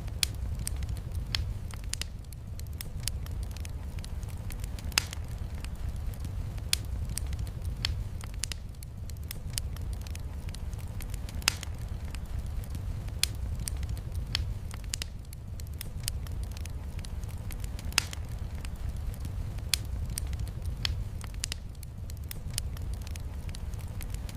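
Wood fire burning in a fireplace, crackling with sharp single pops every second or two over a steady low rumble and a faint hiss of rain.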